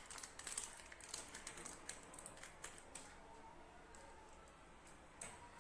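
Scissors snipping through the plastic tip of a piping bag: a quick run of small, faint clicks and snips that stops about three seconds in.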